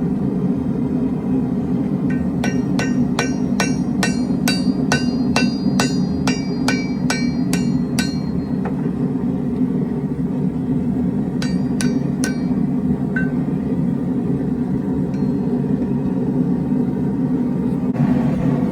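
Hand hammer striking steel on an anvil: a run of ringing blows, about three a second, for some six seconds, then a few more strikes a little later. Under it all runs a steady low roar.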